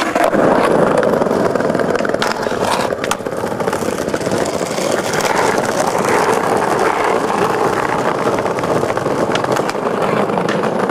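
Skateboard wheels rolling loud and steady over interlocking brick paving, with scattered sharp clacks from the board.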